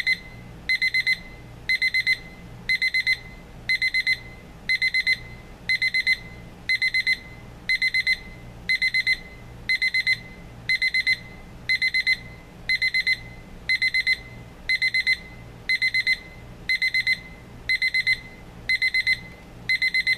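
Advance 6225 touch-screen alarm clock sounding its loud alarm: a high-pitched electronic beeping in quick clusters, repeating about once a second.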